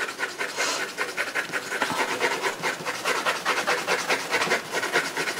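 Dark shading pencil scratching on drawing paper in rapid back-and-forth shading strokes, about six a second.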